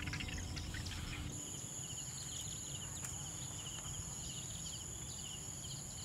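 Countryside insects: a steady high-pitched insect drone sets in about a second in, over a fast, repeated chirping.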